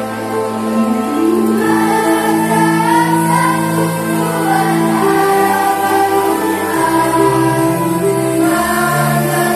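School choir singing a hymn in parts, voices holding long notes over low sustained accompaniment.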